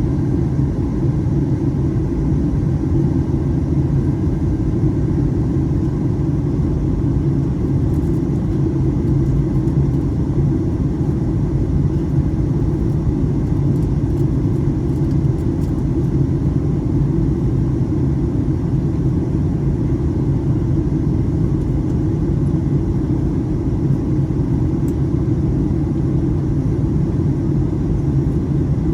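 Steady low roar of an airliner heard from inside the passenger cabin during the descent: engine and airflow noise, unchanging throughout.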